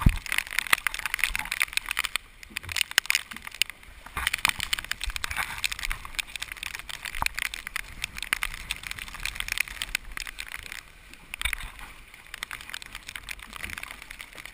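Water rushing and sloshing along the hull of a small homebuilt sailboat moving fast under sail, with many scattered sharp ticks of rain and spray striking the camera.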